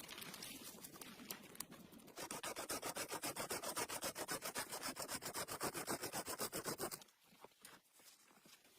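Fast, even rubbing strokes, about ten a second, lasting about five seconds and stopping suddenly, with light scattered clicks before and after.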